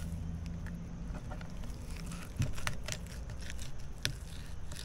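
Fillet knife working along the skin of a raw fish fillet on a wooden cutting board: a few short clicks and light scrapes, with a low steady hum in the first half.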